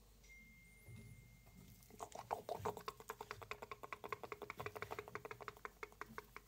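Fingers scratching a cat's fur at the chin and neck: quick, even scratching strokes, about nine or ten a second, starting about two seconds in and lasting some four seconds.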